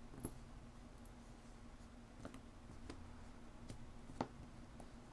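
Small astrology-sign and letter charms being handled and dropped, making a few faint, scattered clicks, the loudest about four seconds in.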